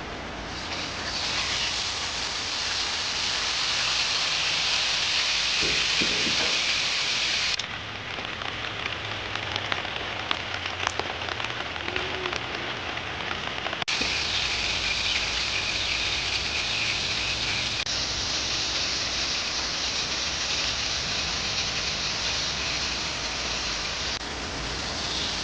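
Rain falling on a surface, a dense steady hiss. About a third of the way in it drops abruptly to a quieter patter of separate drips, and after about six seconds the heavy hiss comes back just as suddenly.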